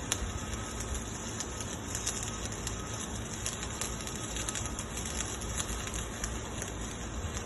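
Arc welding: the welding arc crackles and sizzles steadily, with a dense stream of small pops.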